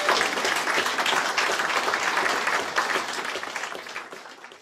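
Audience applauding after a spoken-word poetry reading, the clapping dying away near the end.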